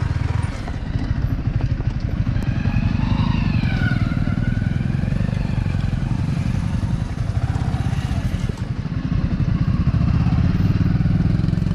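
Yamaha R15 V3's single-cylinder engine running at low speed, a steady low rumble of fast even pulses, a little louder in the last few seconds.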